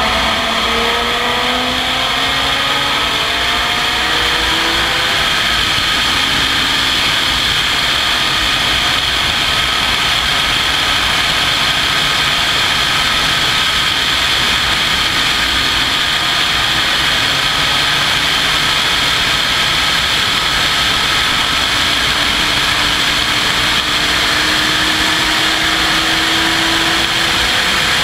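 Open-cockpit sports racer's engine at racing speed, heard from an onboard camera. Its pitch dips and then climbs over the first few seconds as the car accelerates out of a corner, then holds high with a slow rise near the end, over a constant rush of wind.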